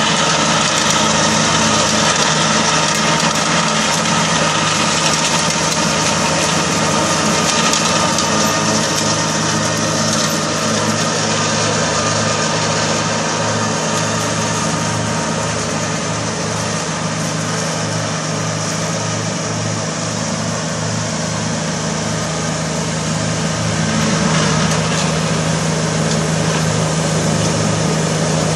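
Kubota compact tractor's diesel engine running steadily under load, driving a rear-mounted rotary mower through tall weeds and brush. The sound eases a little midway and picks up again near the end.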